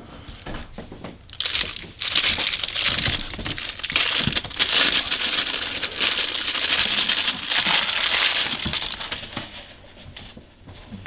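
Plastic packaging crinkling and crackling as it is handled and unwrapped, most of the time between about a second and a half in and near the end.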